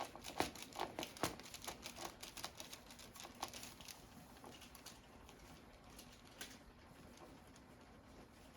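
Faint rustling with quick irregular clicks and ticks from hands and body moving on a padded treatment table, thinning out about four seconds in.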